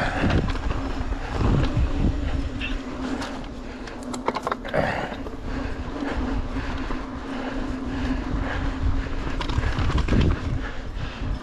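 Mountain bike rolling fast downhill on a dirt and rock trail: tyre rumble with rattles and knocks from the bike over bumps, a steady buzz underneath, and wind buffeting the microphone.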